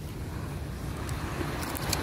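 Wind buffeting the microphone over the steady wash of surf, with a few faint sharp clicks about a second and a half in.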